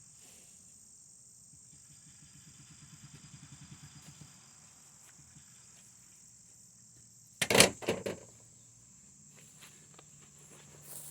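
Steady high-pitched insect chirring. About two-thirds of the way in there is a short cluster of loud knocks or clunks.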